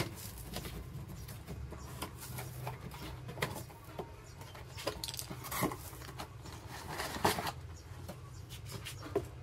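A cardboard box being opened by hand, its lid and flaps folded back and the boxed strut shifted out of its packing: scattered rustles, scrapes and knocks of cardboard, with a few sharper ones about a third, halfway and three quarters of the way through, over a low steady hum.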